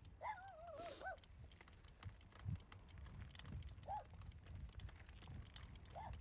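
Mountain bike rattling and clicking over a rough trail, with a low wind rumble on the microphone. Near the start there is a short wavering call, and two brief tones come later.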